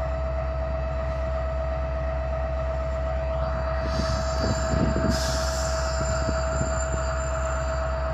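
BNSF diesel-electric locomotive running, with a steady low engine rumble and a constant high whine. A few knocks and a short hiss come about halfway through.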